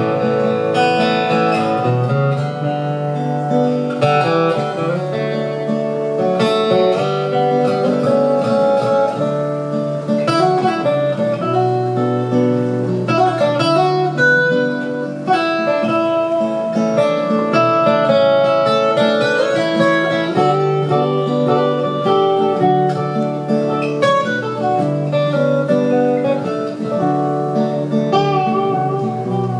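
Instrumental break of a live folk-pop song, with no vocals: strummed acoustic guitar chords under a busy picked lead melody line.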